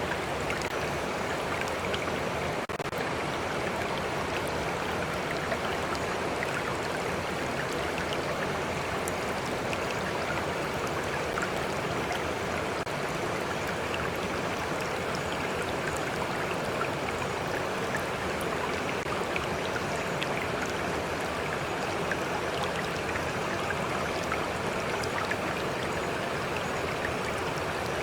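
Stream water flowing steadily over rocks, an even rushing with scattered small ticks of splashing water.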